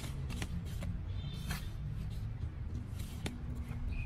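Metal garden trowel scooping soil and tipping it into a plastic flower pot: a few short scrapes and clicks over a steady low rumble.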